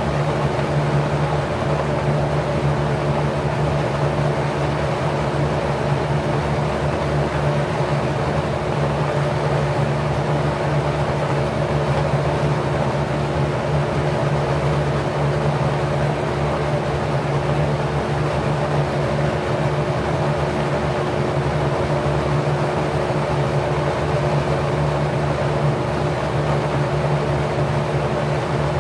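Packard 99319 single-speed 1/5 hp motor spinning a 20-inch, four-blade, 27° pitch LAU propeller at 1050 rpm. It makes a steady rush of moving air with a constant motor hum that never changes.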